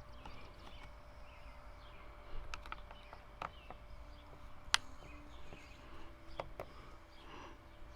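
Light, scattered clicks and taps of a screwdriver working the screws out of a chainsaw's plastic housing, one sharper click a little past the middle. Birds chirp faintly in the background.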